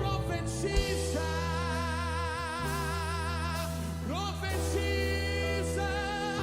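Gospel worship music in a soft passage: sustained keyboard chords under a singer holding long, wordless notes with vibrato. Loud drums stop just as it begins.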